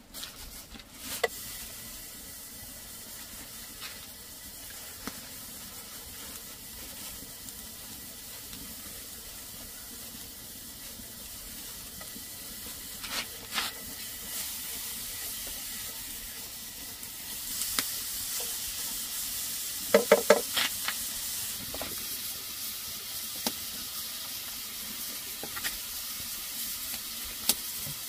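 Food sizzling as it fries in a pan, with a few sharp clinks of a utensil against the pan. The sizzle grows louder a little past halfway, and a quick run of knocks comes about two-thirds of the way through.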